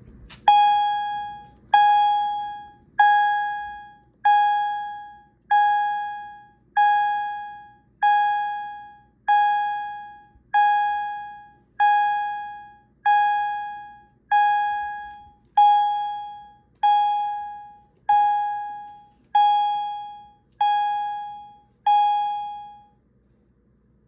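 Wheelock CHDF1WS24 fire alarm chime with its volume at maximum, sounding a single clear, decaying chime tone over and over, about one every second and a quarter. It stops about a second before the end.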